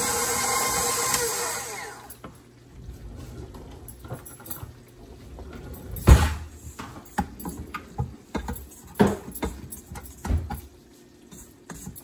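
Electric stand mixer running a flat beater through dry ingredients in a stainless steel bowl, shutting off about two seconds in. Then come scattered knocks and scrapes, a spatula working against the steel bowl.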